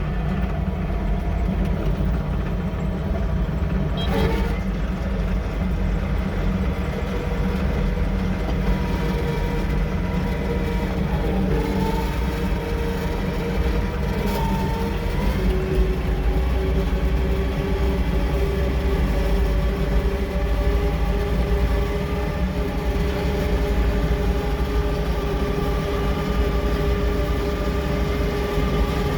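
John Deere 450K LGP bulldozer running: a steady heavy diesel drone with whining tones above it that shift in pitch a few seconds in and again around the middle.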